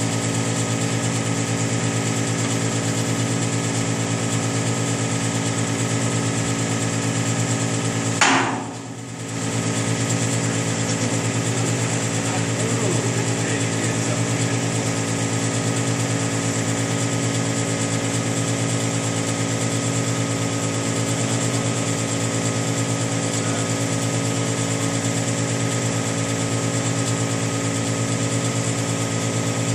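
An engine running steadily with a rapid knocking pulse. About eight seconds in there is a single sharp click, and the sound drops away for about a second before it resumes.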